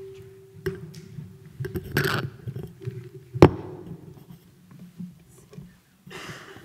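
Podium microphone picking up handling noise: irregular low bumps and scrapes, with one sharp knock about halfway through. A steady ringing tone fades out in the first second.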